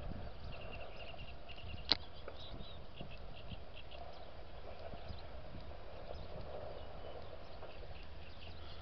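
Quiet open-air background with faint high chirps and a single sharp crack about two seconds in.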